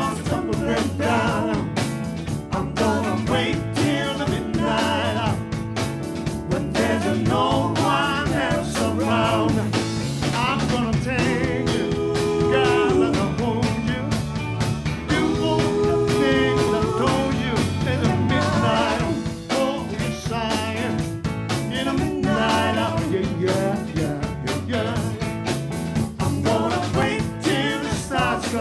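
Live R&B band playing without vocals: a wavering, bending harmonica lead, played into a cupped microphone, over drums, electric bass, electric guitar and keyboards. The lead holds long notes at a couple of points in the middle.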